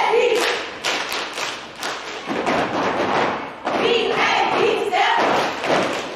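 A step team stepping: stomps and hand claps or body slaps in quick rhythmic hits, with voices calling out briefly near the start and again a few seconds in.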